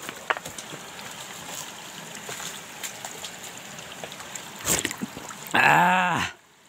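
Small spring trickling off a rock onto stones, a steady running-water sound, with a brief splash about three-quarters of the way through. Near the end a man's short voiced sound, rising then falling in pitch, lasts under a second.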